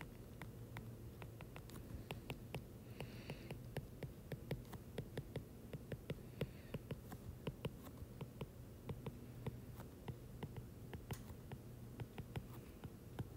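A stylus taps and scratches on a tablet's glass screen during handwriting, making faint, irregular clicks.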